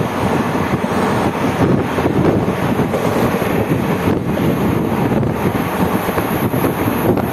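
Steady wind buffeting the microphone over the running noise of a passenger express train at speed, heard from the open doorway of a coach.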